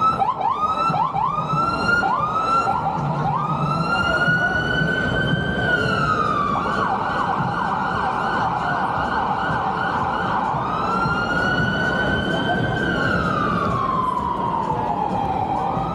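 Emergency vehicle's electronic siren sounding over steady street noise. It starts with a string of quick rising yelps, then switches to a slow wail that climbs, holds, drops abruptly, and later rises and slowly falls again.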